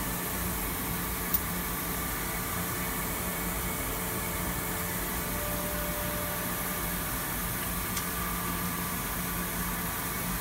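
Steady hum and hiss of running machinery at a Datron milling machine's vacuum table, with one light, sharp click about a second and a half in.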